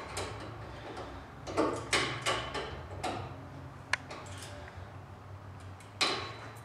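Hand tools clicking and scraping on a golf cart's metal steering column and shaft as a fitting at its top is tightened. The sounds are scattered light clicks, a short cluster about two seconds in, and one sharp click about four seconds in.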